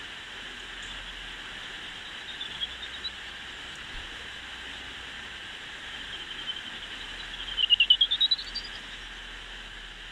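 Bat detector output: a steady hiss with greater horseshoe bat calls made audible as short tone pulses. There are a few faint pulses about two seconds in, then a louder quick run of pulses about three-quarters through, whose pitch falls and then rises.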